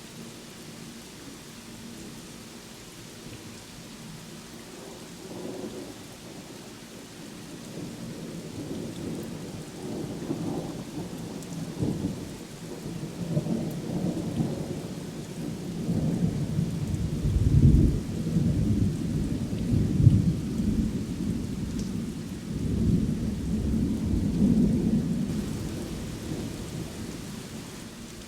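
Steady rain with a long roll of thunder that builds from about a third of the way in, peaks twice past the middle and rumbles away toward the end.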